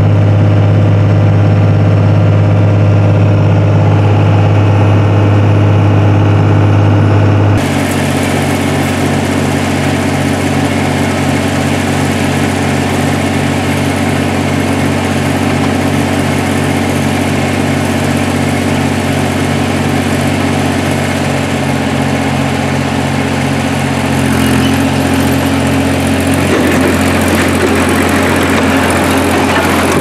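A 24-valve Cummins 5.9-litre inline-six turbodiesel heard from inside the cab, cruising steadily at about 2,000 rpm while towing a trailer. About seven and a half seconds in it gives way to a diesel engine running steadily beside the trailer as a John Deere 350 crawler dozer is driven up to load, its note rising a little near the end as the dozer climbs onto the trailer.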